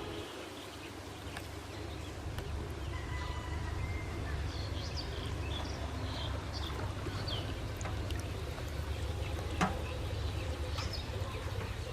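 Steady outdoor water noise with a low rumble, faint high chirps scattered through, and one sharp knock near the end.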